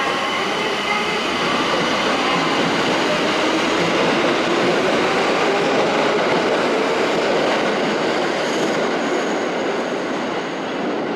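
Tokyo Metro 1000 Series subway train running through the station, a continuous noise of wheels and running gear that grows slightly louder in the middle and eases a little near the end.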